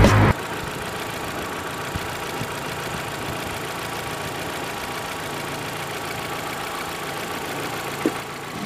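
Proton Exora's engine idling steadily, with a brief click near the end.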